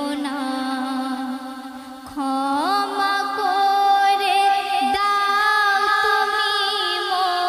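A woman singing a Bengali Islamic gojol (devotional song) with ornamented, wavering notes. About two seconds in she slides up to a long held note.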